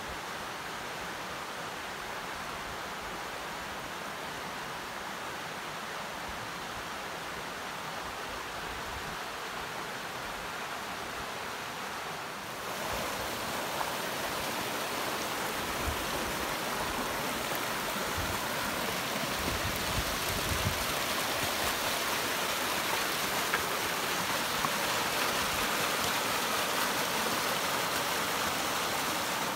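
Steady rushing of a mountain stream, getting louder about twelve seconds in, with a few faint low thumps later on.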